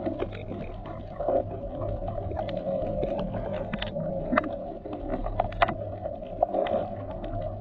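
Underwater ambience over a coral reef: a muffled, dull water sound with a low steady hum and many short sharp clicks and crackles scattered throughout.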